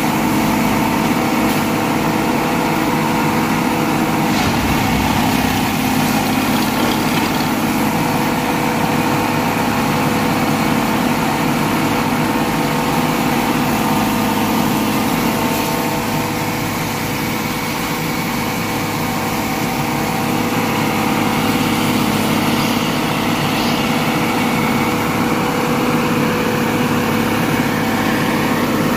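Plasser & Theurer 09-32 CSM track tamping machine working, its engine and hydraulics giving a loud, steady drone with several held tones that eases a little midway through.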